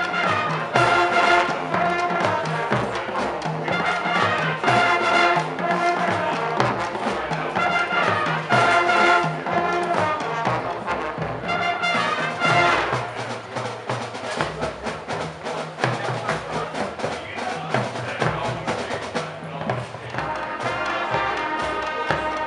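Marching band playing live: loud brass chords from trumpets and trombones over drumline beats. About halfway through the brass thins out, then comes back with long held notes near the end.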